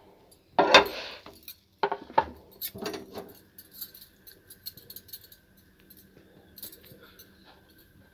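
Egg-dipped bread going onto a ghee-greased tawa, with a few knocks and clinks of utensils in the first three seconds, then faint crackling of the ghee as the bread starts to fry.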